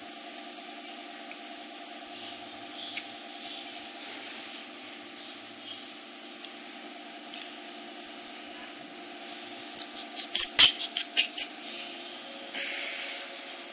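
A steady mechanical hum with a thin high whine running under it; about ten seconds in, a quick run of about eight sharp taps.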